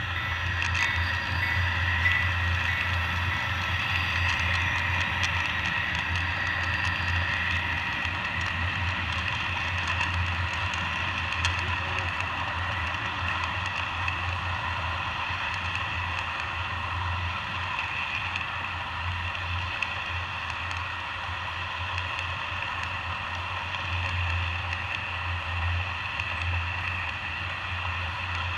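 Model passenger train with Alaska Railroad SD70MAC locomotives rolling past close by: a steady rush of small metal wheels running on the rails, over a constant low hum, with a few faint ticks.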